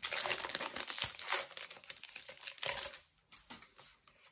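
Foil wrapper of a Pokémon TCG Shining Fates booster pack crinkling and tearing as it is opened, a dense crackle for about three seconds, then a few faint rustles before it goes quiet.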